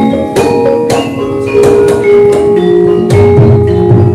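Javanese gamelan playing: struck bronze metallophones ringing out a melody at about two notes a second over low drum strokes, the music that accompanies a wayang performance.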